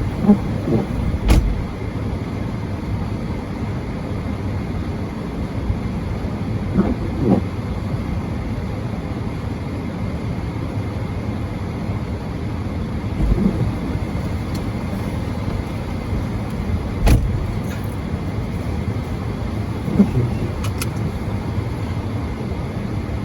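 Car driving, heard from inside the cabin: a steady low rumble of engine and road, broken by a few sharp clicks and several short squeaks.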